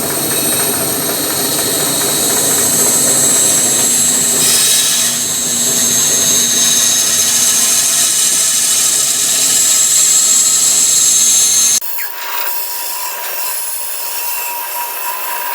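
Bandsaw running as a piece is pushed through the blade, a loud steady high-pitched noise. About twelve seconds in it drops suddenly to a quieter steady hum with one held tone.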